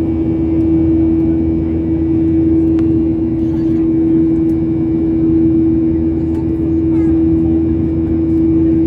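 Airliner cabin noise during the climb after takeoff: the turbofan engines and airflow make a steady loud drone with a strong constant hum running through it.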